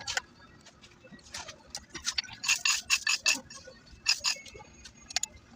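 Metal tools and alternator parts clicking and clinking in irregular clusters as the alternator is taken apart by hand.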